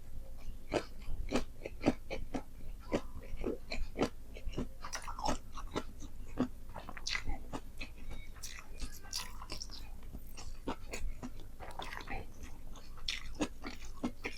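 Close-miked mukbang chewing of a nasi padang meal of rice and fried chicken: wet mouth smacks and light crunches in quick, irregular clicks, a few per second.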